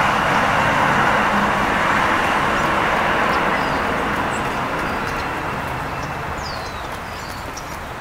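A steady rush of background traffic, fading over the second half, with a few faint high songbird chirps. Near the end come light taps of a California quail pecking seed on the wooden table.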